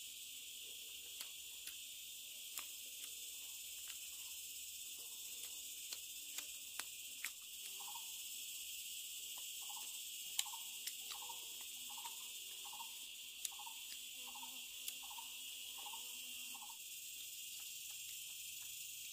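Steady high-pitched insect chorus, with scattered sharp clicks. Midway, a run of short repeated calls comes in at about two a second for several seconds.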